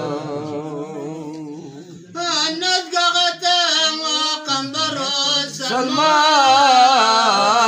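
A man's voice singing a Sufi devotional qasida unaccompanied, in a wavering, ornamented style with much vibrato. One phrase fades out about two seconds in, then a new, higher phrase begins and grows louder into long held notes near the end.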